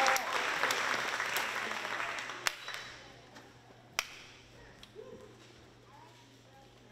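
Audience applause dying away over the first three seconds, followed by a couple of last single claps.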